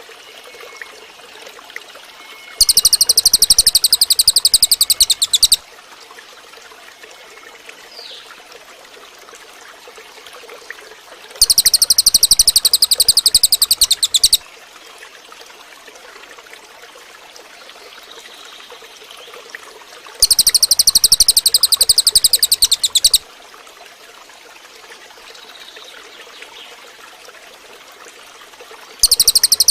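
A cililin (crested jay) giving its loud, high, very fast rattling call, each rattle lasting about three seconds and repeated about every nine seconds, four times in all, the last starting near the end. Between the rattles a steady trickle of running water is heard.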